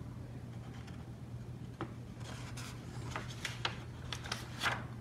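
Small handling noises from a paintbrush being worked at the palette: from about two seconds in, a run of short scratchy strokes and taps. A steady low hum sits underneath.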